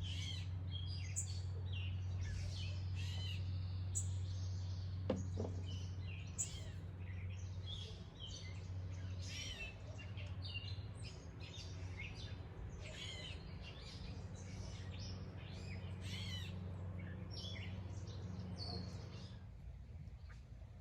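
Several songbirds chirping and singing, with many short overlapping calls and trills, over a steady low hum that fades out near the end.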